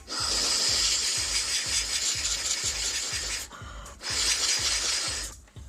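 Two hissing blasts of air from a small blower pipe attachment, aimed into a laptop's dusty cooling fan to clear it. The first is long and the second shorter, after a brief pause. A soft background music beat runs underneath.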